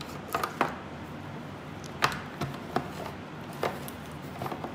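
Hard plastic clicks and knocks as the lids of a Scoopy Ice ice cream maker are set in place and turned to lock: several separate sharp taps, the loudest about two seconds in.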